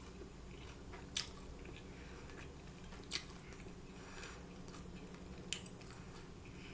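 Mouth chewing Korean fried chicken with a crunchy maple-glazed coating, close to the microphone: a few sharp crunches spaced a second or two apart.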